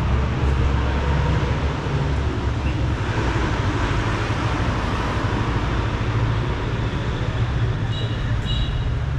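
Street traffic noise: a steady rumble of passing vehicles, swelling for a couple of seconds in the middle. Two short high beeps sound near the end.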